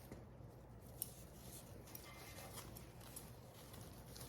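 Very faint handling sounds of a ribbon bow being worked by hand: light rustles and small clicks, with one sharper click about a second in.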